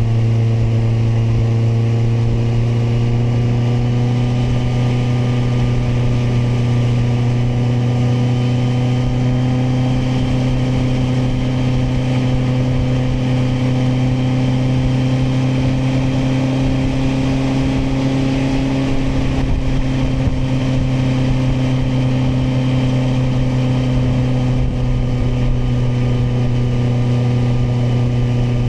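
Kawasaki motorcycle engine running steadily at cruising speed. Its pitch rises slightly about two-thirds of the way through, then settles back a little.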